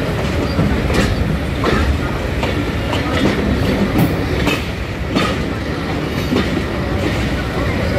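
Passenger train coach running along the track, heard from an open door: a steady rumble and rushing wind, with sharp, irregular clacks of the wheels over rail joints about once a second.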